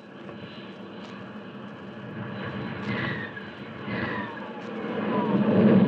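Sound effect of jet fighter planes in flight: a rushing jet roar, with whines falling in pitch twice as the planes go into a descent, growing louder toward the end.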